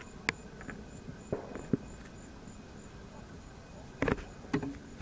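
Insects chirping in the eclipse darkness: a faint, even pulsing high chirp, about three a second. A few sharp clicks and knocks break in, the loudest twice near the start and about four seconds in.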